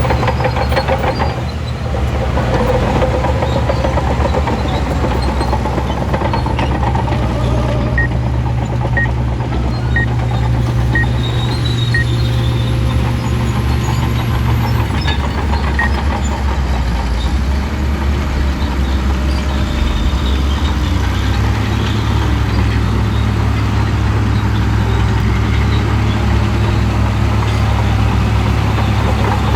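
Shantui bulldozer's diesel engine running steadily under load while pushing and clearing land; its note drops about halfway through and picks up again a few seconds later. Faint short high beeps come about once a second for a few seconds in the middle.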